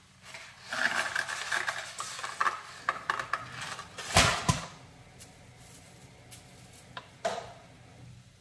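Kitchen handling: crackling, rustling packaging for about three seconds as a box of dry spaghetti is opened, then two sharp clunks about four seconds in, and a few light clicks after.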